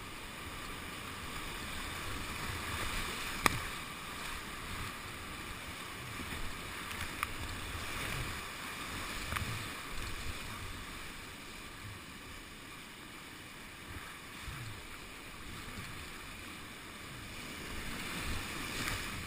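Whitewater rapids rushing around a kayak in a river at high flow, a steady wash of churning water, with a sharp knock about three and a half seconds in and a smaller one a few seconds later.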